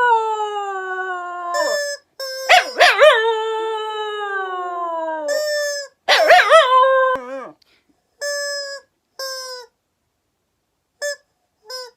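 Black Shiba Inu howling along with a toy's cry: two long howls that waver at the start and slide down in pitch, then a warbling burst. In the second half only short, steady, even notes are heard, three or four of them.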